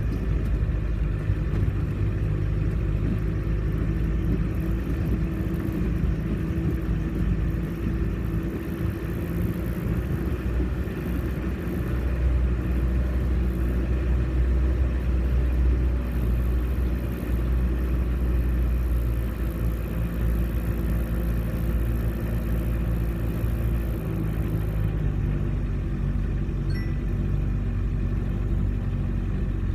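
Off-road vehicle's engine running with a low, steady drone that grows louder for about ten seconds in the middle, then eases back.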